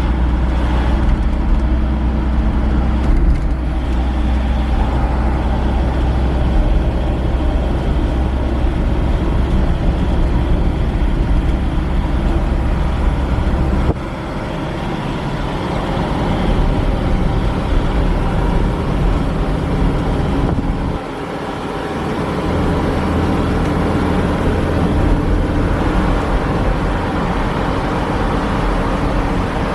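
Steady low rumble of engine and road noise heard from inside a moving vehicle's cabin. It drops briefly about halfway through and again about two-thirds of the way through, then comes back up.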